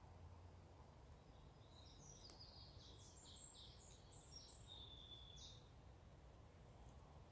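Near silence with a faint low background rumble, and a small songbird singing a short phrase of quick high notes from about two seconds in to past five seconds.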